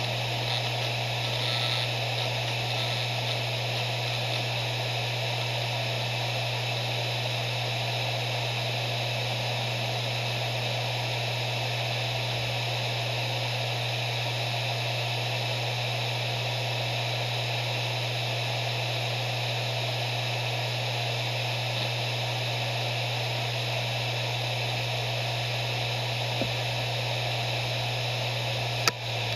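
Maxtor MaXLine Plus II 250GB 7200 RPM hard drive spinning at speed: a steady low hum with hiss. A sharp click comes near the end, and the hum starts to drop as the drive begins to spin down.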